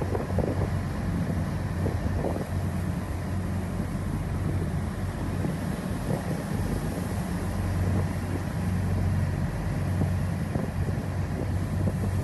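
Lifeboat's diesel engines running with a steady low drone, under the rush of wind on the microphone and heavy sea.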